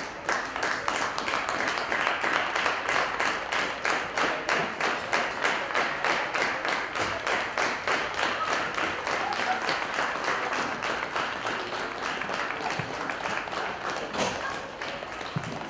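A group of people clapping together in a fast, steady rhythm, the claps even and in unison; it thins out near the end.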